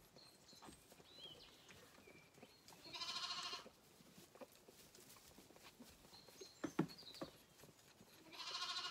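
Zwartbles lambs bleating twice, about five seconds apart: each a short, high, wavering call, the second near the end.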